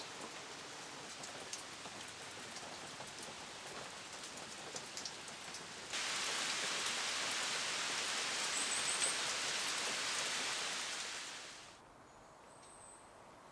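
Rain falling, an even hiss with scattered drop ticks. About six seconds in it switches suddenly to louder, denser rain hiss, which fades away near the end to a faint background.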